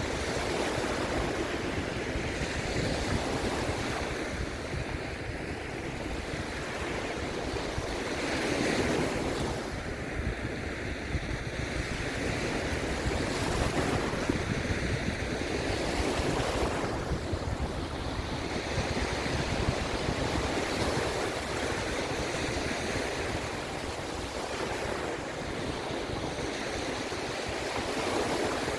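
Sea waves breaking and washing in a steady rush that swells and eases every few seconds, with wind across the microphone.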